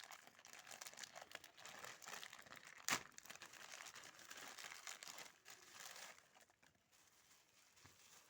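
Watch packaging crinkling and rustling as it is handled and unwrapped, with one sharp click about three seconds in; the crinkling dies down about seven seconds in.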